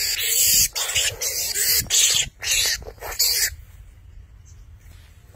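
Cobra hissing in a run of sharp, loud bursts, about six in three and a half seconds, then dying down.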